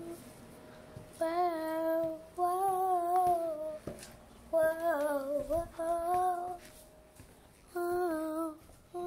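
A young girl singing in short phrases of held, steady notes, with brief pauses between the phrases.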